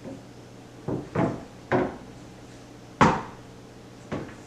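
Crossbow parts knocking and clicking against each other as the cable slide is handled and fitted onto the rail: five separate sharp knocks, the loudest about three seconds in.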